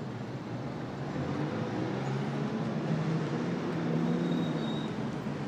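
Steady city traffic noise with a low hum that swells in the middle.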